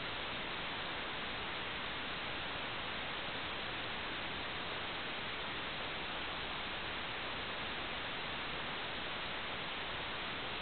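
Steady, even static hiss from an analog wireless video downlink's audio channel, with no propeller hum or other sound in it.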